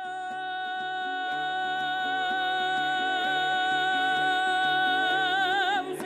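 Kazakh kobyz ensemble music: one long held melody note that wavers near the end, over a steady rhythmic accompaniment.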